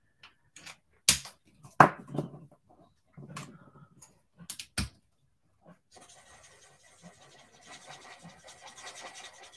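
Several sharp clicks and knocks in the first few seconds as alcohol markers are handled, uncapped and set down on the desk, then from about six seconds in the steady scratch of a Stampin' Blends alcohol marker's felt tip colouring over card.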